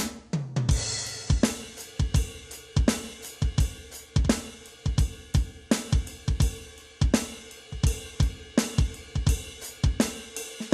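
Alesis Command Mesh electronic drum kit played in a steady groove, with kick, snare, hi-hat and cymbal sounds from its module and a crash cymbal washing out about a second in.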